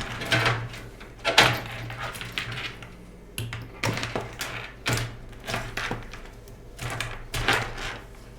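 Irregular clicks, knocks and rustles of plastic cable ties being twisted off with a multi-tool and the freed cables being handled inside a PC case.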